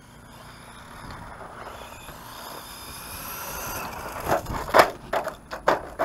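Brushless electric motor of a Redcat Terremoto 10 RC monster truck whining, growing louder as the truck speeds toward the camera. From about four seconds in it is cut by five quick, loud scraping bursts as the tyres scrub on the gritty asphalt.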